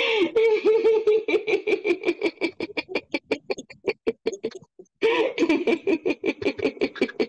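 Laughter on a drawn-out 'ee' vowel, pulsing in quick bursts: a laughter-yoga exercise. It breaks off for a breath after about four and a half seconds and then starts again. Background music with a quick, even beat runs underneath.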